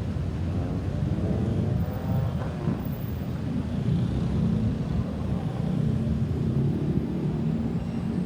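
Road traffic: a steady low rumble of vehicle engines and tyres, with a vehicle passing about one to three seconds in.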